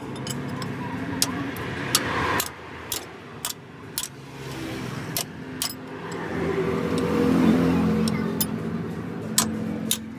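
Sharp metal clinks of spanners on the bolts of a truck's axle and differential housing, scattered irregularly, over a vehicle engine running steadily in the background that grows louder for a few seconds past the middle.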